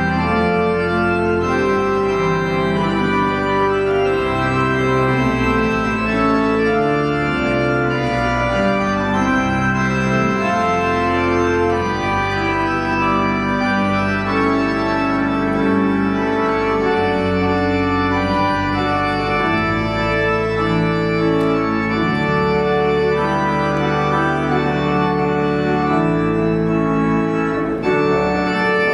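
Organ music: slow chords of held notes that change every second or so.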